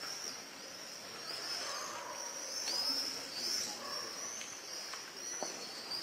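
Birds calling overhead in a run of overlapping high-pitched chirps.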